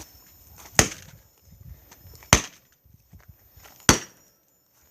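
Three sharp blows about a second and a half apart: something hard being struck down on a broken tablet to smash it.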